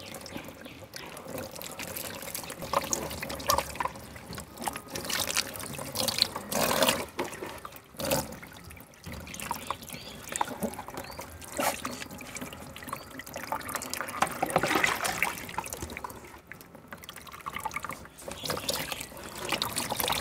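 Water poured from a plastic jug over a wet puppy standing in a plastic tub, trickling and splashing unevenly as shampoo is rinsed from its coat.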